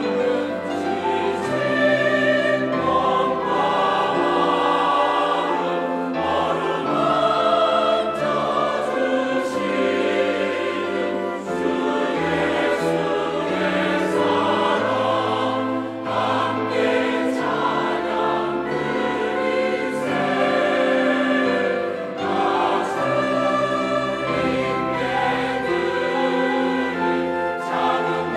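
Mixed church choir of men's and women's voices singing a Korean hymn together in harmony, over sustained low accompaniment notes.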